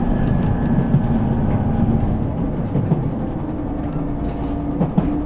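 Train running noise inside a moving passenger car: a steady low rumble and hum, with a few sharp clicks from the track.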